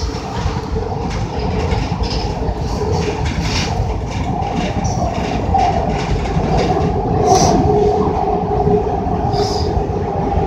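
Market–Frankford Line elevated train running at speed, heard from inside the car: a steady rumble of wheels on rail with a droning hum and a few sharp clicks.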